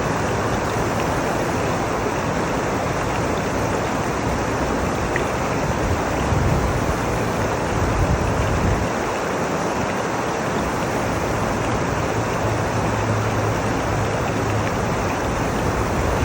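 McHugh Creek rushing: a steady, dense roar of fast-flowing water over rocks. A deeper low rumble swells twice, about the middle and again near the end.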